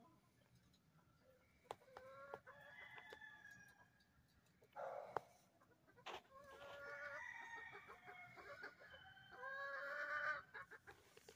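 Domestic chickens calling faintly: three drawn-out calls of a second or two each, with short clucks and clicks between them.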